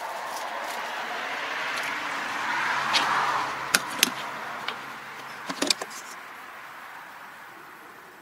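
Plastic tool box latches clicking open and the lid lifting, a couple of sharp clicks about four seconds in and a quick cluster near six seconds. Under them a rushing noise swells about three seconds in and then slowly fades.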